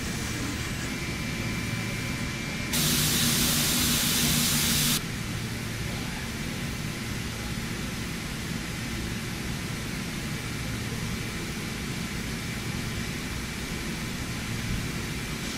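CNC machine running while it machines a crankshaft: a steady mechanical hiss and hum. About three seconds in there is a louder rushing hiss, which lasts about two seconds and starts and stops abruptly.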